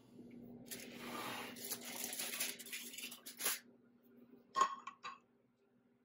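A crinkling, rustling noise for about three seconds, then two short clinks half a second apart: a metal pick knocking against a glass baking dish as small plastic parts are fished out of it.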